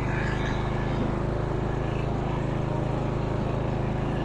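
Simplicity rear-engine riding mower's small engine running steadily under load, as the mower drives on an old, slipping drive belt.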